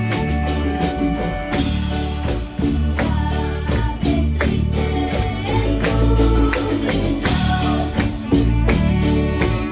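Music: a band with held bass notes, guitar and frequent percussion hits.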